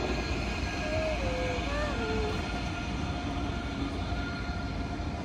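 Train moving in a station: a steady low rumble with a constant hum, and a few short falling squeals a second or two in.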